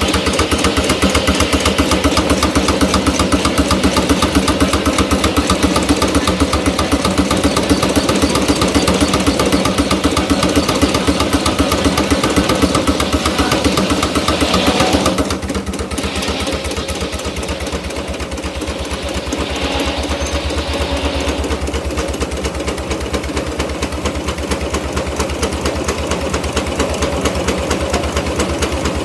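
Case portable steam engine running a sawmill, with a fast, steady beat. About halfway through the sound drops noticeably in level and stays lower.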